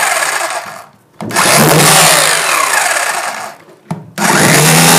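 VI-Power Gold 800 W rotary hammer drill running with a pointed chisel bit, breaking up a red clay brick. It runs in three bursts, cutting out briefly about a second in and again near four seconds, then starting up again each time.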